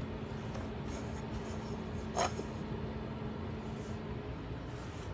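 Room tone in a small room with a faint steady hum that stops near the end, and one short sharp tap about two seconds in; no meowing.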